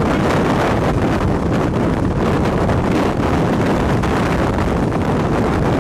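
Strong wind buffeting the microphone in a loud, steady rush.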